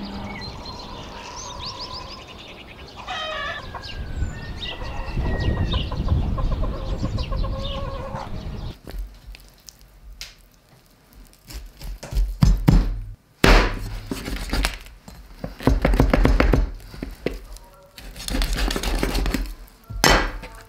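A rooster crowing once about three seconds in, with hens clucking and other bird calls, for the first half. Then a run of loud knocks and thuds, irregular and spaced out.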